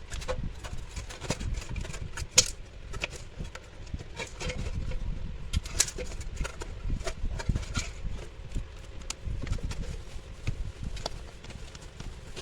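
Irregular clicks, taps and knocks of hand work on the parts of an electric cooking pot being repaired, with one sharper knock a little over two seconds in, over a low rumble.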